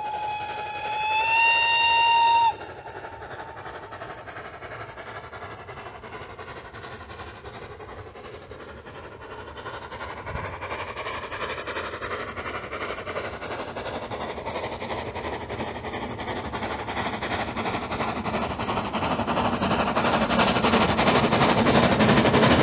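Steam locomotive whistle holding one note, rising a little in pitch and cutting off sharply about two and a half seconds in. The running noise of the steam locomotive and its train then grows steadily louder as it approaches.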